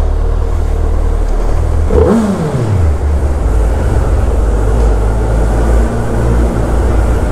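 Suzuki Hayabusa's inline-four engine running as the motorcycle is ridden slowly. About two seconds in there is a brief rev whose pitch falls away over about a second.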